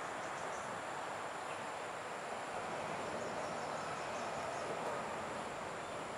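Steady outdoor ambience: a constant high-pitched drone of tropical insects over an even background hiss.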